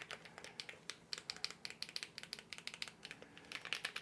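Quick, irregular run of small plastic and metal clicks and taps from handling the parts of a disassembled mechanical keyboard.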